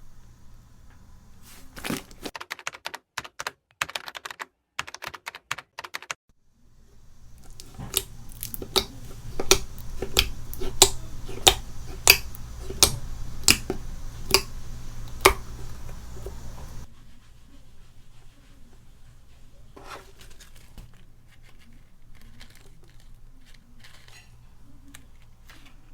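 Slime being pressed and squeezed by hand, giving sharp crackling clicks and pops, loudest in a middle stretch at about one or two pops a second and softer toward the end.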